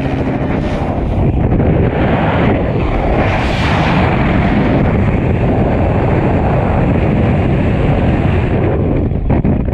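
Freefall wind rushing over a helmet-mounted GoPro's microphone, a loud steady noise. The helicopter's hum dies away within the first second.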